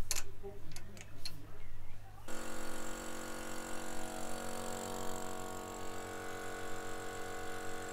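A few clicks, then about two seconds in a small electric air compressor switches on and runs steadily, its motor humming as it pumps up its tank.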